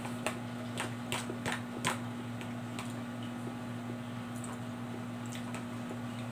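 Metal spoon clicking and scraping against a plastic food container while scooping, about five sharp clicks in the first two seconds, then a few fainter ones. A steady low hum runs underneath.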